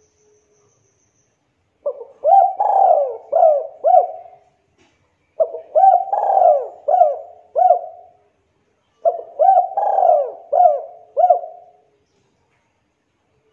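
Spotted dove (tekukur) cooing: three phrases of four or five coos each, with short pauses between them.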